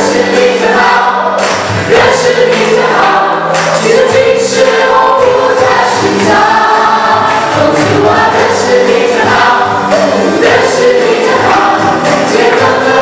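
A group of men and women singing a gospel song together into microphones, with musical accompaniment.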